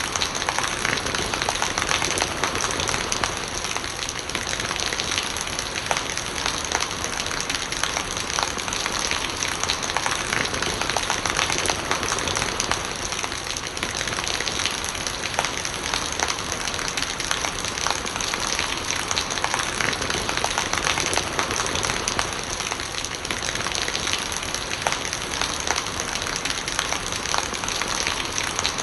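Steady rain falling, with many close drops ticking on surfaces and rainwater gurgling as it runs off.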